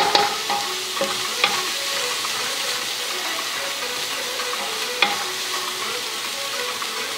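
Diced onion, carrot and bell pepper sizzling in butter and a little oil in a stainless steel pot, stirred with a spatula that scrapes and knocks against the pot a few times.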